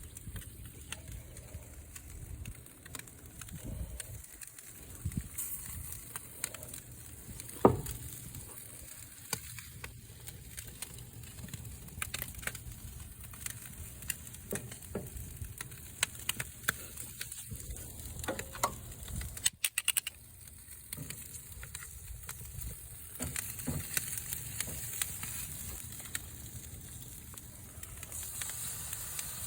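Barbecue pig tails sizzling over a fire, with scattered crackles and pops and one sharp pop about eight seconds in.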